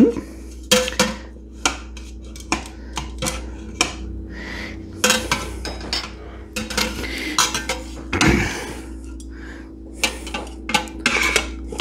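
A spatula clinking and scraping against the Instant Pot's stainless steel inner pot and the cookware while cooked baby back ribs are lifted out and turned over: a string of sharp clinks and short scrapes over a steady low hum.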